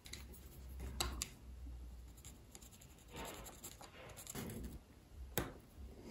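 A pointed hand tool scratching and pressing on an MDF board, with a couple of sharp taps about a second in and another near the end.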